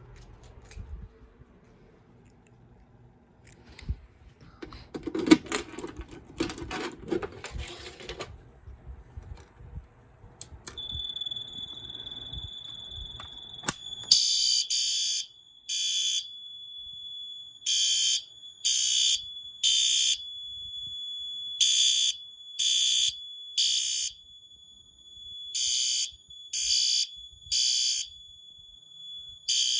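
System Sensor P2R SpectrAlert Advance horn sounding in the temporal-3 evacuation pattern, from about halfway in: groups of three short, loud blasts, each group followed by a pause. A steady high tone runs beneath it from a few seconds earlier. The first several seconds hold clattering, rustling and clicks.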